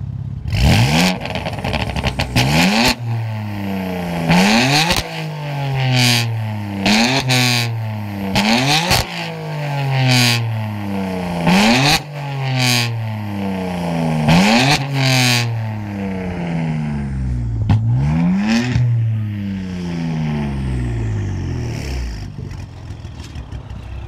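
A BMW F82 M4's twin-turbo straight-six, run through an ARMYTRIX aftermarket exhaust, revved hard again and again while the car stands still. Each rev shoots up and falls away, with sharp cracks at the top of several, before the engine settles back to idle near the end.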